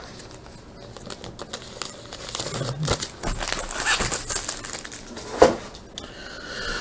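Trading card pack wrapper being torn open and crinkled, with irregular crackling that grows busier in the middle and one sharper crinkle about five and a half seconds in.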